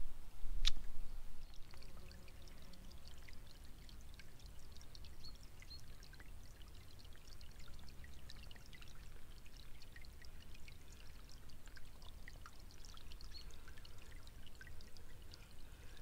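Shallow stream running over pebbles, a steady trickle with many small plinks of water. There is a sharp click about half a second in.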